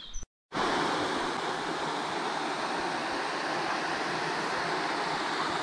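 A stream's water rushing steadily, starting after a short dropout about half a second in.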